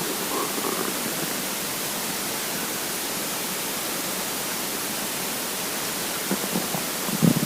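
Steady hiss, with faint brief gurgles from a hungry, empty stomach just after the start and a short, slightly louder rumble near the end.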